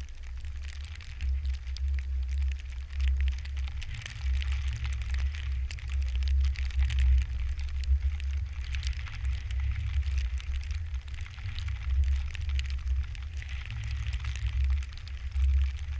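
Wind buffeting the microphone in a low, gusting rumble that swells and dips, with a faint crackling hiss above it.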